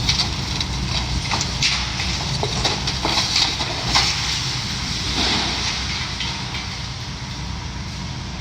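Heavy demolition machinery running with a steady low rumble, with irregular sharp clanks and knocks of debris and metal being worked loose, most of them in the first half.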